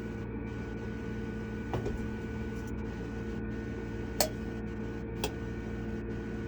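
Steady background hum with three short sharp clicks of parts or tools being handled during valve spring work on a cylinder head; the second click is the loudest.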